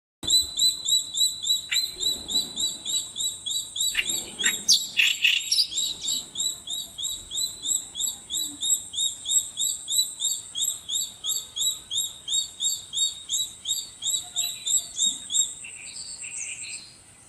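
A bird calling a sharp, high note over and over, about three or four times a second in an even rhythm, with a few other bird calls over it around four to six seconds in. The calls stop shortly before the end.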